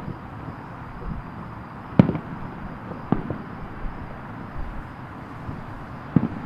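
Distant fireworks bursting: a sharp boom about two seconds in, the loudest, another about a second later, and a quick double boom near the end, over a steady low background rumble.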